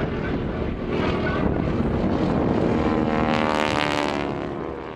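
Radial engine and propeller of a Boeing Stearman biplane droning overhead in display flight. The sound swells about three seconds in, then fades away near the end.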